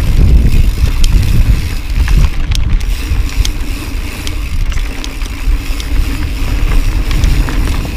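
Wind noise buffeting the microphone over mountain bike tyres rolling on dirt and rock during a fast descent, with many scattered sharp clicks and rattles from the bike and trail.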